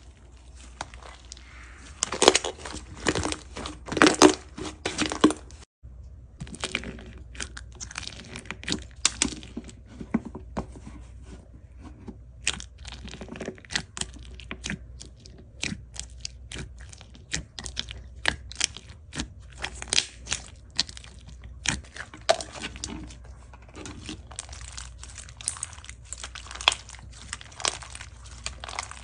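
Thick white slime being squeezed, poked and stretched by hand, giving dense runs of sharp crackling and popping as air pockets burst. The loudest crackling comes in the first few seconds.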